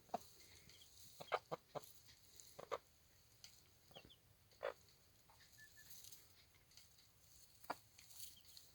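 Hen giving short, quiet clucks scattered through, about one every second or so, with a few faint high peeps from her two-day-old chicks.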